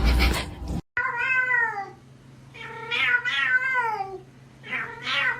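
A domestic cat meowing: three long, drawn-out meows of about a second each, the pitch sliding down at the end of each. The meows begin about a second in, right after a loud noise that cuts off abruptly.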